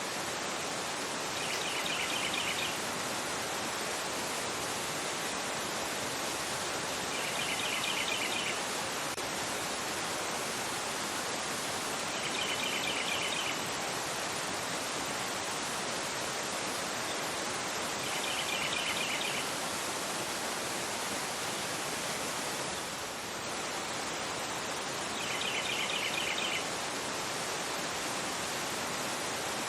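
Fast river water rushing steadily over a rocky bed. A short, high, rapidly pulsed bird trill of about a second repeats every five to six seconds.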